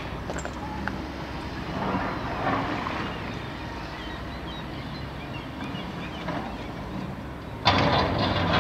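Heavy excavator's diesel engine running steadily, with a sudden louder, harsh noise breaking in near the end.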